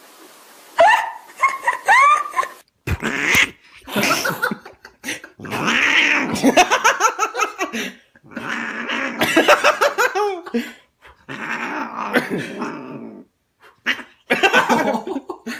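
Domestic cat, held in a person's arms, growling and yowling: a few short rising cries first, then long, wavering cries repeated about six times with short pauses between them.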